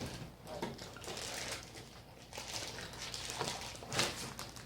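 Faint handling noises of a plastic Play-Doh playset: scattered light clicks and rustles, with one sharper tap near the end.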